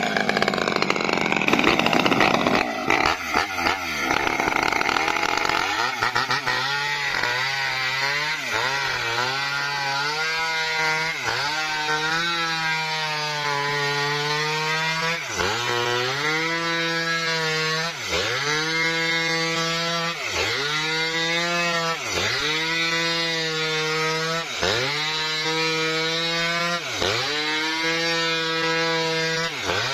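Maestro mini chainsaw's two-stroke engine running at high revs as it rips lengthwise through a coconut palm log. From about six seconds in, its pitch dips sharply under the cut and recovers, every two seconds or so.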